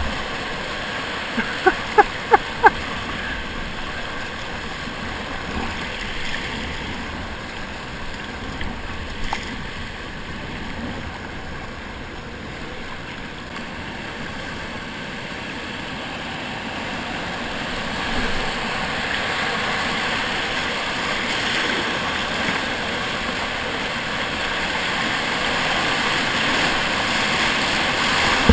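Rushing river water and paddle splashes heard from a whitewater kayak, with a quick series of four sharp knocks about two seconds in. The rush of water grows louder over the second half as the kayak runs into a rapid.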